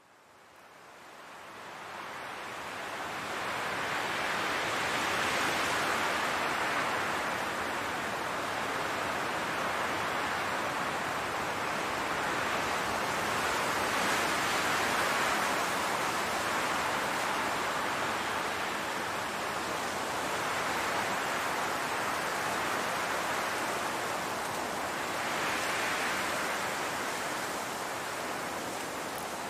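Wind blowing across a grass field: a steady rushing hiss that fades in over the first few seconds, then swells and eases in slow gusts.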